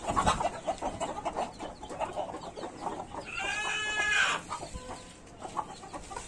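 Desi chickens clucking softly as they forage, with one long, drawn-out call from one of the birds about three seconds in.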